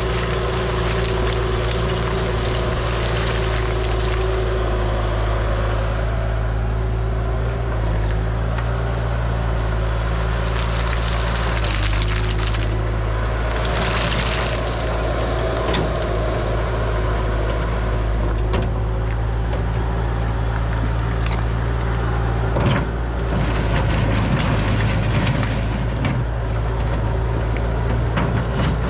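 A compact track loader's diesel engine runs steadily under work, with a few sharp knocks in the second half.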